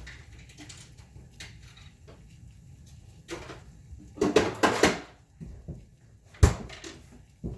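Clatter and knocks of hose and fittings being handled, with a dense run of rattling about four seconds in and one sharp knock near the end.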